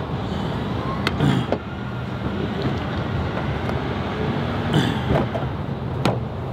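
A steady low hum of a running vehicle engine, with three sharp plastic clicks as headlight wiring and parts are handled: one about a second in and two near the end.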